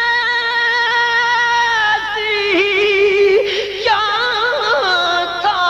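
A man's voice singing a naat, holding one long steady note for about two seconds, then dropping lower into wavering, ornamented runs.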